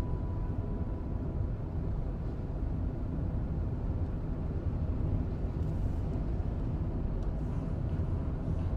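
Steady low rumble of a car driving, heard from inside the cabin, with a few faint taps near the end.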